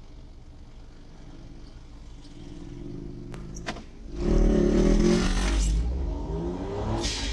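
A motorcycle accelerating hard as it overtakes close alongside on the right, loudest from about four seconds in, over the hum of the dashcam vehicle's own engine as it pulls away.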